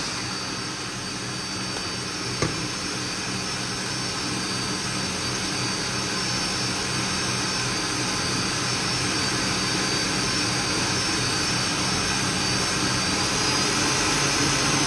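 Electric kitchen mixer running steadily while whipping eggs, a constant motor whine over a low hum, with a single click about two and a half seconds in.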